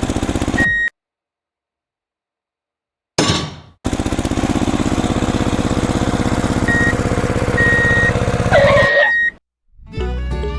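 Truck engine running with a steady pulse and an intermittent high beep, cut off abruptly twice: dead silence for about two seconds early on, then a brief whoosh before the engine comes back. Music starts near the end.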